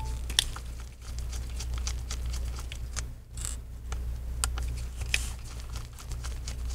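Scattered small clicks and ticks of a T8 Torx screwdriver backing out the hinge screws of a MacBook Air A1466, over a steady low hum.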